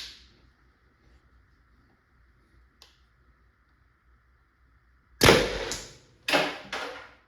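Tippmann TiPX CO2-powered less-lethal pistol firing: a sharp crack with a short gas hiss, then a second, slightly quieter crack about a second later.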